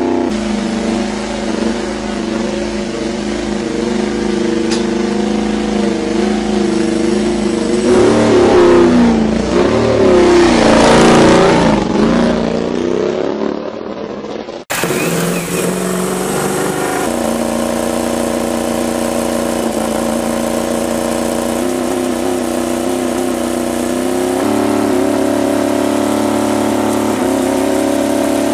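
Yamaha YZR-M1 MotoGP racing motorcycle's inline-four engine running steadily, revved up and down a few times about eight to twelve seconds in, then fading away. About halfway through, a second recording of the M1's engine cuts in and runs steadily, stepping up slightly in pitch twice.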